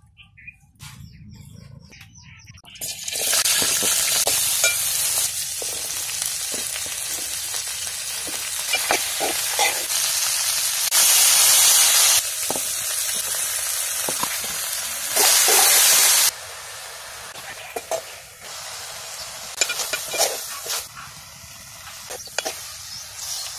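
Sliced brinjal and green chillies sizzling as they fry in a metal pot, with a spoon clicking against the pot as it stirs. The sizzle starts about three seconds in, grows louder twice for about a second each time, and is quieter over the last several seconds.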